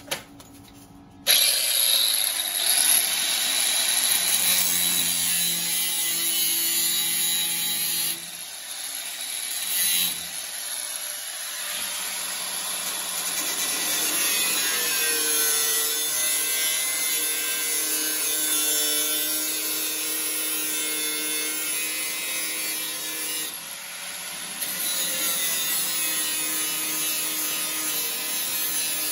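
Handheld grinder with a cut-off wheel cutting through the rusty sheet steel of a 1968 Pontiac Firebird's inner wheel house. It starts about a second in and runs with a steady whine, easing off briefly a few times as the cut pauses.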